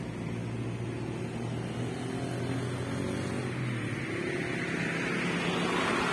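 A car approaching and passing close on the road, its tyre noise building over the last two seconds, over a steady low engine hum.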